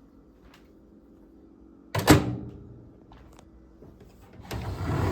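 Door of an Emerson MW8108P countertop microwave shut with one sharp clunk about two seconds in. Near the end a rising rubbing, shuffling noise starts.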